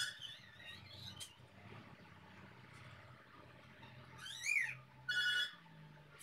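A few animal calls: a short chirp at the start, a rising-and-falling call about four seconds in, then a short steady high call a second later, over a low steady hum.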